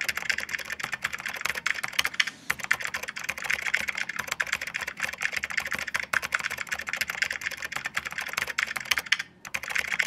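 Fast typing on a computer keyboard: a dense, steady run of key clicks, broken by short pauses about two seconds in and again near the end.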